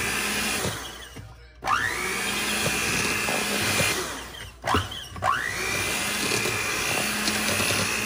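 Electric hand mixer creaming butter and powdered sugar in a bowl, its motor whining steadily. It cuts out about a second in and again about four and a half seconds in, each time starting up again with a whine that rises in pitch.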